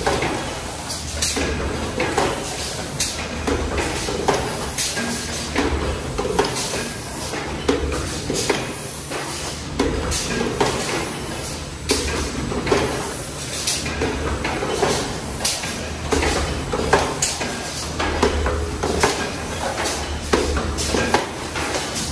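Automatic aluminium foil container making machine running, a low hum swelling and easing every couple of seconds, with sharp mechanical knocks and clanks about once a second.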